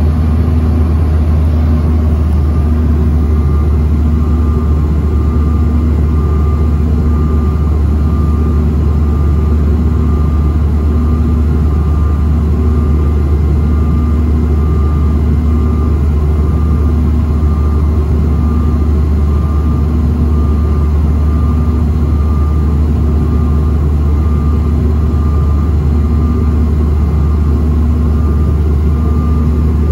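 Steady cabin noise of a Bombardier CRJ-900 jet in flight, heard inside the cabin: a loud, deep, unbroken rumble of airflow and the rear-mounted turbofan engines, with a faint hum over it.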